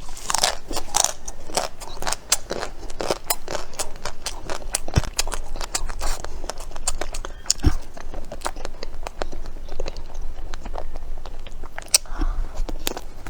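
Close-up eating of a matcha Magnum ice cream bar: its chocolate shell crunching and crackling under quick bites, with chewing, in a dense run of small cracks.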